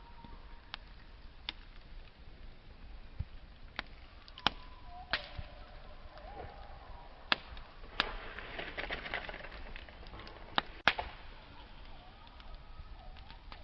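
Wood campfire burning, with sharp pops and snaps every second or so and a spell of dense crackling about eight seconds in.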